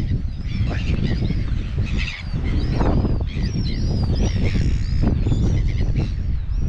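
Wind buffeting the microphone in heavy gusts, with many birds calling over it in a dense, overlapping chorus of short arched calls, as at a seabird colony on a cliff.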